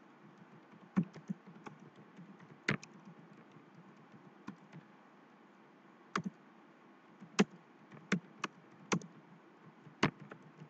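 Typing on a computer keyboard: irregular keystroke clicks, with a handful of louder strokes standing out among fainter ones.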